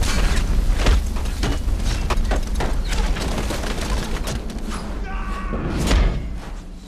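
Film battle sound: a barrage of flaming arrows whooshing and striking in rapid succession over a deep rumble, with a short cry about five seconds in.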